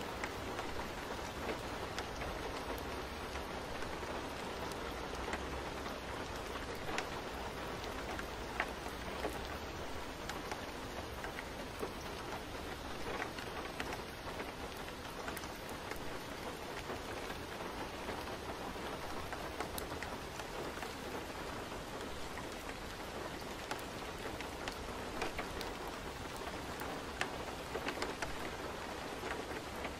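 Steady rain: an even hiss with scattered drop ticks.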